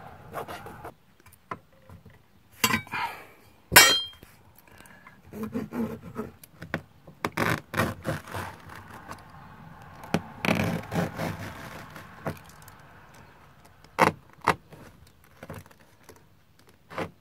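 Utility knife scraping and cutting through a fabric-covered RV wall panel in short, uneven strokes, with scattered clicks and knocks; the sharpest click comes a little before four seconds in.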